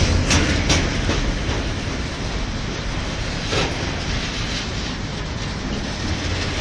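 Freight train hauled by a Class 66 diesel locomotive rolling past, its wheels clicking over the rail joints in a steady rumble. A few sharp clacks come near the start, then the noise eases slightly.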